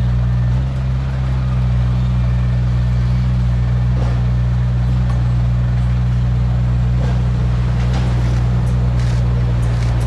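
Diesel engine of heavy earthmoving equipment running steadily with a constant low drone.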